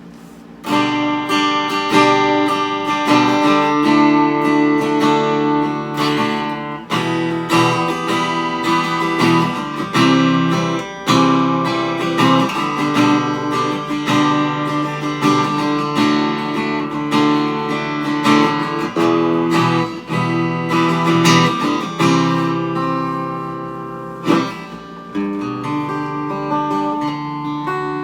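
D&D Django Jr. mahogany acoustic-electric guitar strummed through its small 10-watt practice amplifier, playing a run of chords. The strumming starts about half a second in and keeps going.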